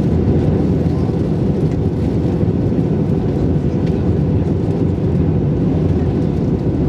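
Airbus A321-231 cabin noise in flight, heard from a window seat over the wing: the steady, even drone of its IAE V2500 engines and the airflow past the fuselage, with no changes.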